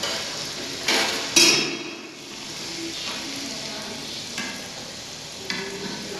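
Puris deep-frying in hot oil: a steady sizzle, broken by a few louder sudden noises, the loudest about one and a half seconds in.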